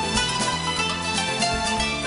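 Theme music of a television series' opening titles, with a steady beat.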